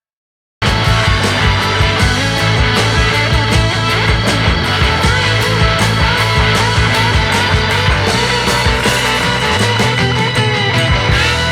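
Rock-style background music with guitar and a steady beat, cutting in abruptly from silence about half a second in.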